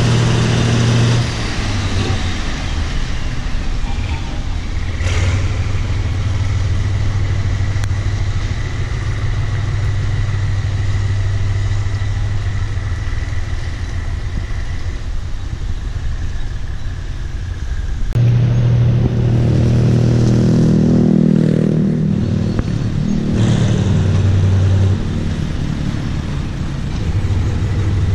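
Diesel-electric locomotive engine running with a steady low throb. About 18 seconds in the sound changes abruptly to a louder, closer engine as the GE shunting locomotive comes near.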